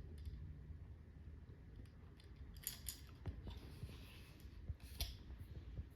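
Faint handling noise: scattered soft clicks and two short rustles, over a low steady rumble.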